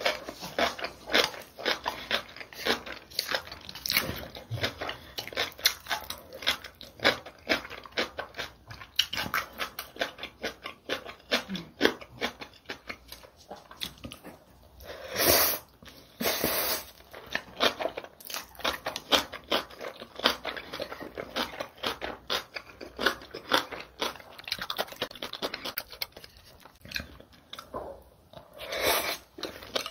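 Close-miked mouth sounds of a person eating spicy mixed noodles (bibim-guksu): a fast, uneven run of wet chewing clicks and smacks, with two longer slurps of noodles, one about halfway through and one near the end.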